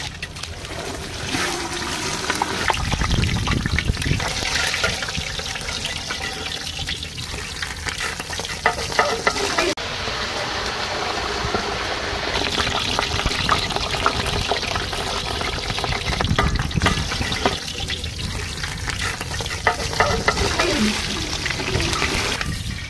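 Water sloshing and splashing in a large steel basin as a whole skinned goat carcass is washed and turned over by hand, with a metal ladle stirring in a steel pot partway through.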